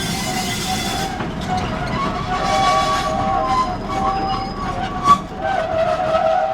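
Narrow-gauge field railway train rolling with its wheels squealing against the rails in several shrill, wavering tones over a low rumble. A single sharp knock comes about five seconds in.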